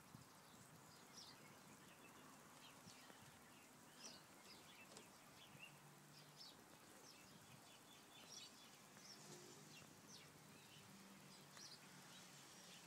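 Quiet outdoor ambience with faint, scattered bird chirps, short high notes every second or so.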